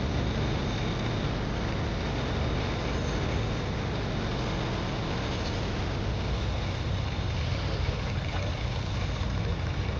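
Vintage tractor engine running steadily, with a low even drone.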